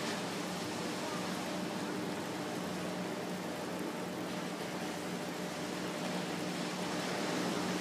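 Steady wash of surf breaking on the beach below, heard from a height, with a faint steady low hum under it.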